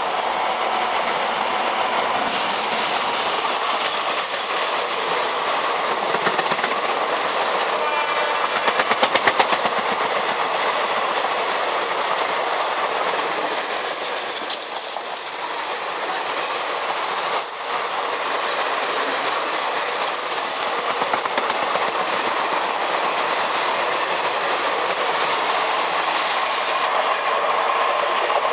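Express passenger train passing through a station at speed: a steady rush of coaches with the clickety-clack of wheels over rail joints, and a short horn blast about eight seconds in.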